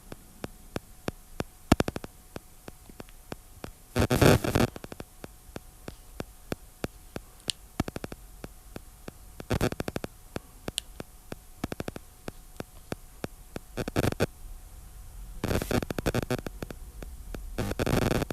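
Crackling, static-like noise: many sharp clicks throughout, with five louder bursts of rough noise, each up to about a second long.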